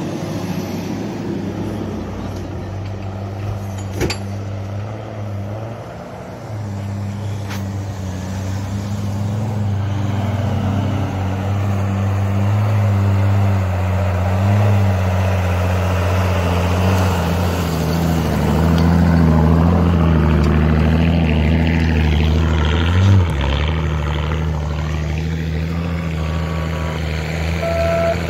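Off-road 4x4 engines running under load at low revs as the vehicles crawl through deep snow, getting louder in the middle as one comes closer. A sharp knock comes about 4 seconds in and a heavier thump about 23 seconds in.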